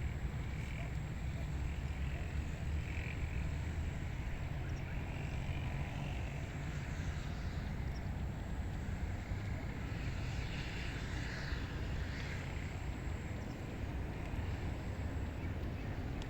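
Wind blowing across a rice paddy, with a steady low rumble and a rustling hiss above it.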